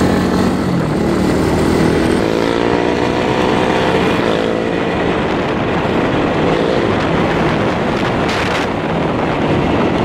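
Four-wheeler (ATV) engine running under way, its note rising and falling with the throttle, over a steady rush of wind and road noise on the microphone.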